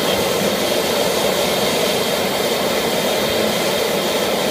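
High-pressure propane wok burner of the PF13L160 outdoor stir-fry stove burning at full flame with its valve opened wide: a loud, steady rushing roar that holds level.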